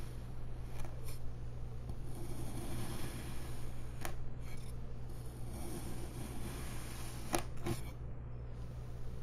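A blade slicing through kinetic sand: soft gritty scraping strokes, with a few sharp clicks, two of them close together near the end, over a steady low hum.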